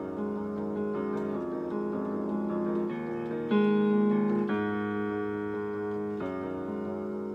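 Digital keyboard played with a piano sound: sustained chords that change every second or so, the loudest struck about three and a half seconds in.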